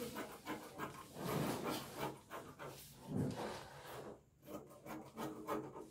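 Scissors cutting through printed fabric, with the cloth rustling and rubbing on the paper-covered table; the noise comes in uneven spells, loudest about a second in and again near the middle.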